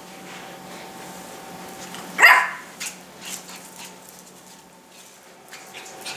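Miniature pinscher puppy barking at a broom: one sharp, loud bark about two seconds in, a couple of fainter short sounds soon after, and another bark starting right at the end.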